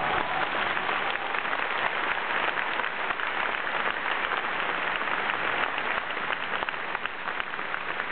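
A large stadium crowd applauding steadily, a dense patter of many hands clapping.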